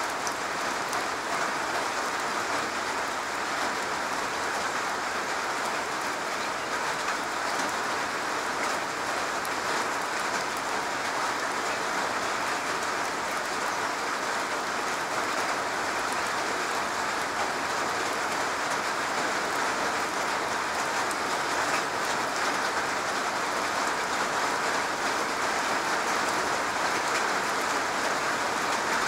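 Steady rain falling on a garage roof: a dense, even patter of many small drops, growing slightly louder near the end.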